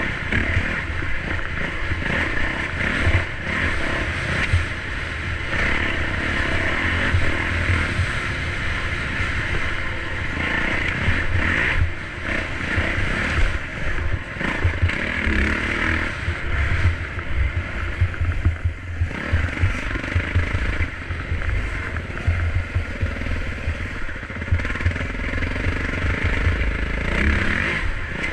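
Dirt bike engine running steadily through a ride on deep-sand single trail, its sound rising and falling with the throttle.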